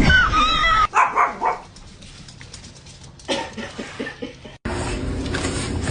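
A domestic pet's short pitched call in the first second, followed by a few quick louder bursts, then scattered clicks. The sound cuts off abruptly a little past the middle and gives way to a steady hiss.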